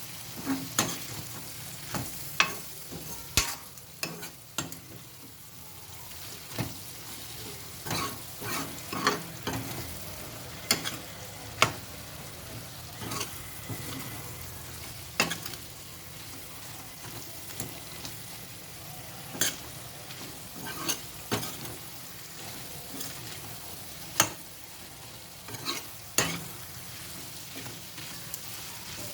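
Sliced tomatoes sizzling in a pan on a high flame, with a spoon stirring them and clicking and scraping against the pan at irregular moments.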